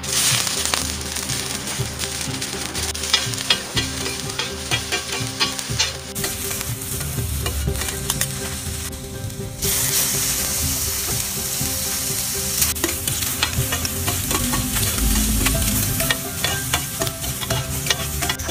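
Shrimp and squid sizzling in hot oil on a flat-top griddle, with a metal spatula scraping and clicking against the plate many times as the seafood is stirred.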